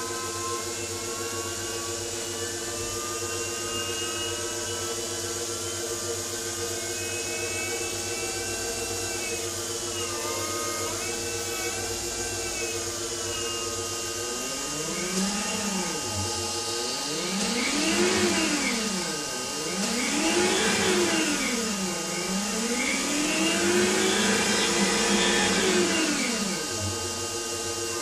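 Siemens electric drive motor and inverter in a converted BMW 840Ci whining steadily at low speed. From about halfway it is revved up and down four times, the whine rising and falling in pitch with each rev and the last rev held longest.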